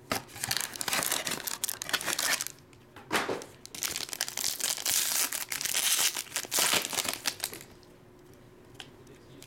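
Shiny plastic trading-card pack wrapper crinkling and tearing as it is opened by hand. There are loud spells of crinkling at the start and again from about four to seven and a half seconds in, and it then goes quiet.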